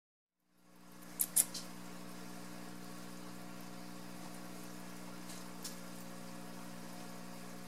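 A steady low hum with several faint pitched tones, fading in about half a second in, with light sharp clicks from handling the rabbit on the carpeted table: two about a second in and two fainter ones near six seconds.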